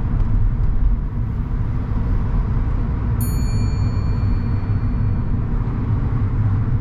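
Steady road and engine rumble inside a moving car's cabin. About three seconds in, a short high-pitched chime sounds and fades away.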